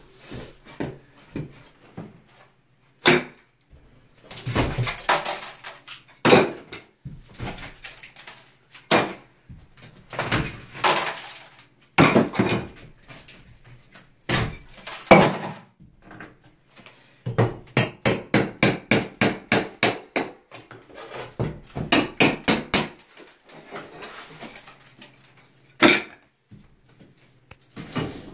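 Old ceramic wall tiles and crumbling plaster being broken and pulled off a shower wall: irregular cracks, scrapes and crunches of falling debris. About halfway through and again a few seconds later come quick runs of sharp hammer-like strikes, about six a second.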